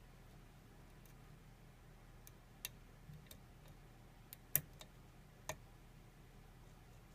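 Faint, scattered small metallic clicks of lock picks working inside a kik lock cylinder, about half a dozen irregular ticks with the loudest a little past the middle.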